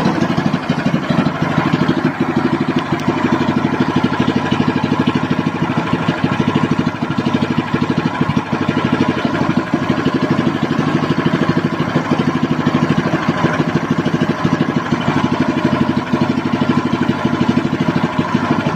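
Small single-cylinder petrol ketinting (longtail boat) engine running steadily at an even speed, with a rapid regular firing pulse.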